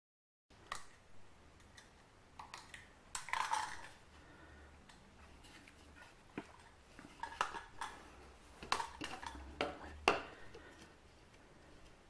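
Irregular clicks, scrapes and knocks of a UPVC water pipe and a rubber vacuum-motor seal ring being handled and pressed together on a table, with the sharpest knocks about three seconds in and near ten seconds.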